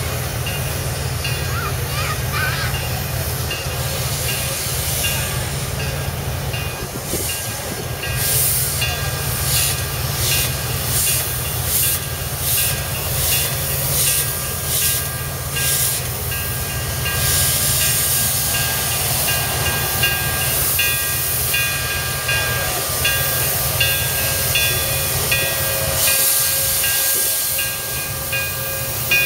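Iowa Interstate's Chinese-built QJ-class 2-10-2 steam locomotive working slowly forward: a low steady rumble, then from about eight seconds in a regular beat of exhaust chuffs, about one and a half a second. Steam hisses in long stretches around the middle and again near the end.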